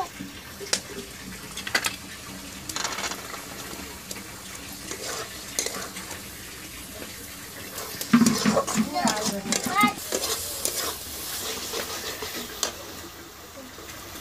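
Metal spatula scraping and stirring a thick masala in an iron kadai, with a low sizzle of frying. About eight seconds in it gets louder for a couple of seconds, as green peas are tipped into the hot pan and stirred through.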